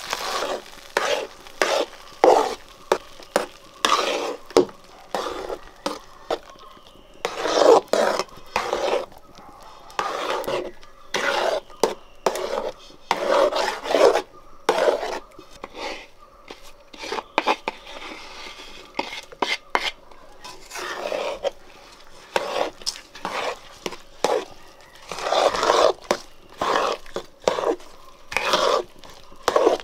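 Metal spoon stirring and scraping thick banana puree around a metal pan, in many short, irregular strokes.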